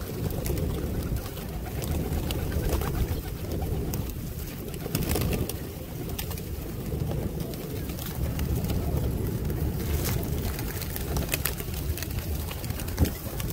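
A close flock of feral rock pigeons feeding: low cooing, with scattered sharp taps of beaks pecking grain off the ground and brief flutters of wings.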